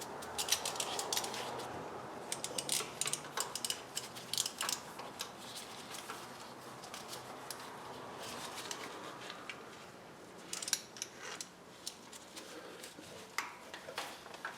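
Light metallic clicks and scrapes of a hand tool working on an ATV's engine oil filter to break it loose, scattered irregularly with a busier spell in the first few seconds and another near the end.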